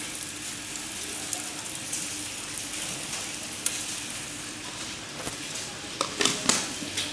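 A steady sizzling hiss in the kitchen with a low hum under it, and a few sharp clicks near the end.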